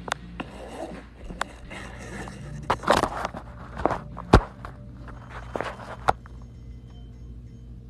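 Handling noise as a phone is moved about: fabric rustling with scattered clicks and knocks, the loudest knock about four seconds in, over a steady low hum.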